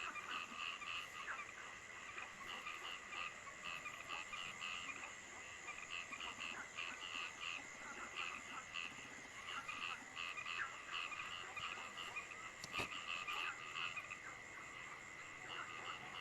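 Frogs calling at night in a dense chorus of short, rapidly repeated croaks, over a steady high-pitched drone and the even hiss of falling rain. A single sharp click comes near the end.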